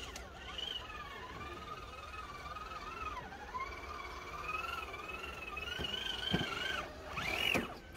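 RC rock crawler's electric drive motor whining, its pitch wandering up and down as the throttle is eased on and off over rocks. There is a light knock about six seconds in, and a quick higher rev near the end.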